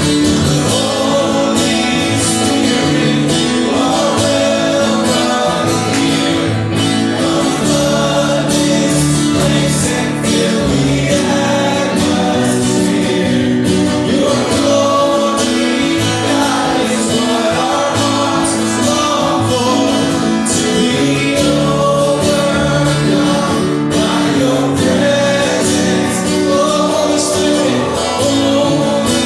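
Worship music: singing with guitar accompaniment, a gospel-style song played at steady volume.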